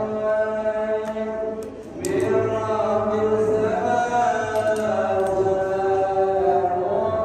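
A man's voice chanting in a mosque, holding long notes that waver slowly, with a short pause about two seconds in before the chant goes on.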